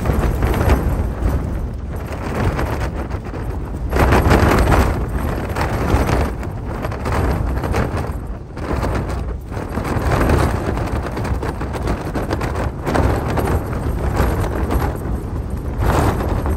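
Hilleberg Soulo tent's fabric flapping and rattling in strong gusting wind, heard from inside the tent, with a deep buffeting rumble and rapid crackling snaps of the flysheet. The noise surges with each gust, loudest about four seconds in, again near the middle and near the end.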